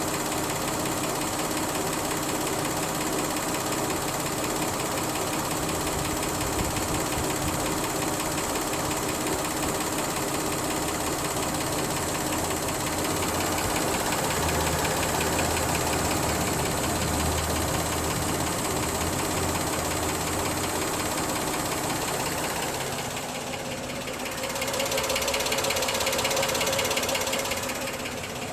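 2005 Honda Odyssey's V6 engine running with a fast, even mechanical ticking clatter, the strange noise the owner is showing. About three-quarters of the way through the sound dips briefly, then comes back louder for a few seconds.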